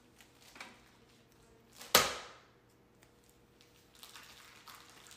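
A single loud slam about two seconds in, something banged down hard in the kitchen, ringing out briefly. Fainter knocks and rustling come before and after it.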